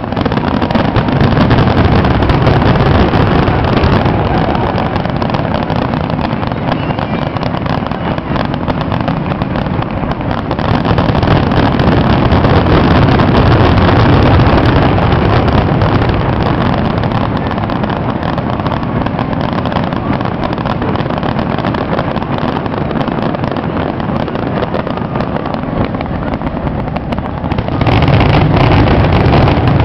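Fireworks going off in a continuous barrage: a dense rumble of bursts and crackling from aerial shells and spark fountains. It swells and eases in waves, with a loud surge near the end.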